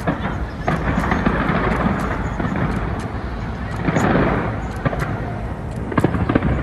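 Fireworks display going off: repeated sharp bangs and cracks over a constant low rumble, swelling about four seconds in.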